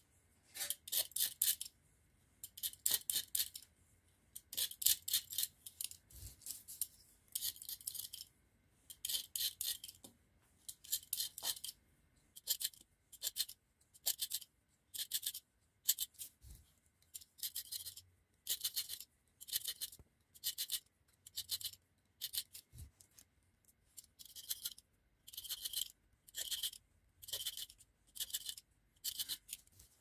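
Repeated scraping strokes, about one a second, as enamel insulation is scraped off the ends of copper magnet wire on a rewound motor winding.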